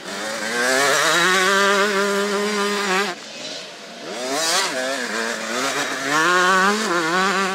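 Small two-stroke mini motocross bikes ridden hard through a corner, each engine held at a high, steady pitch with a warbling note. The first bike's sound cuts off abruptly about three seconds in. Another engine then revs up and down and settles on a steady high note near the end.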